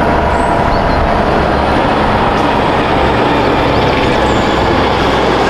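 Steady, loud running noise of a large vehicle with a faint whine over it, cutting in and out abruptly.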